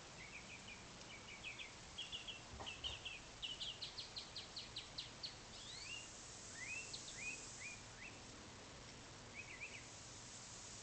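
Small birds chirping and calling: scattered short chirps, a quick run of repeated notes, then several upslurred whistled notes, over a faint steady hiss. One soft knock comes a few seconds in.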